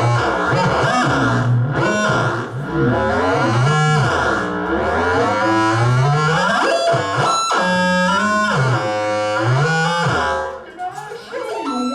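Experimental noise music played live: loud electronic pitched tones sliding up and down in wide sweeps, over and over. About ten and a half seconds in, the sweeps stop and shorter tones that step up and down take over.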